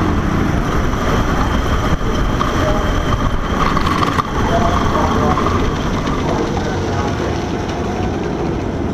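KA100 kart's 100cc two-stroke engine running at low revs as the kart rolls slowly off the track. There is a sharp knock about four seconds in.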